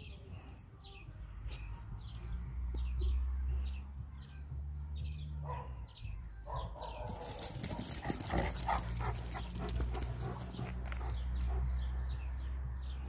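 A dog barking, with a few short barks around the middle.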